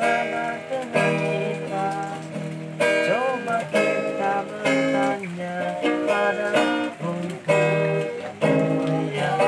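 Acoustic guitar strumming chords in a slow rhythm, a fresh strum about every second, in an instrumental passage with no singing.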